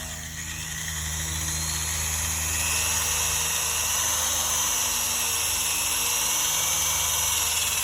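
Electric drill boring through aluminum, its sound building over the first couple of seconds and then running steadily.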